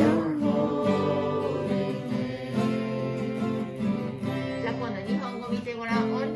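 Acoustic guitar strumming as accompaniment to a small group of people singing together.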